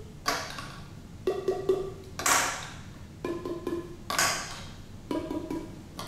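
Plastic palm pipes struck against an open palm, each giving a short hollow pitched note. A few strikes land on one pipe, then the next pipe sounds a different note. Sharp clacks come between the groups, about two and four seconds in.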